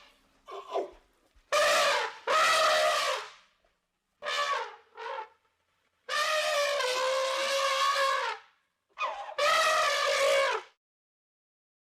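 Elephant trumpeting: a string of loud, brassy calls, short and long, with pauses between them; the longest two each last about two seconds, in the second half.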